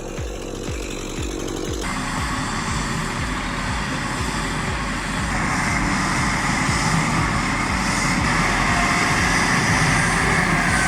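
An engine running hard and steady, getting louder about five seconds in. Before that, a regular knocking cuts off about two seconds in.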